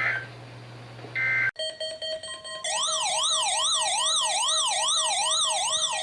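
Electronic siren-style alert tone warbling up and down about two and a half times a second over a steady lower tone. It starts after two short beeps, a sudden cut and a few plain tones.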